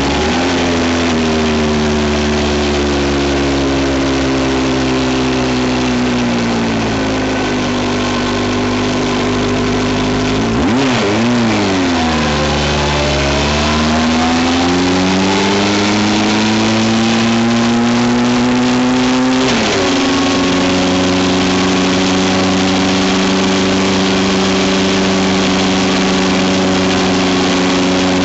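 A vehicle's engine running while driving. Its pitch sinks slowly at first, dips and jumps sharply about eleven seconds in, climbs steadily, then drops suddenly at about twenty seconds and holds steady to the end.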